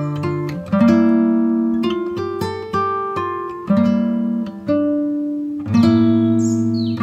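Background music: an acoustic guitar picking notes and strumming chords, each struck chord ringing out and fading before the next.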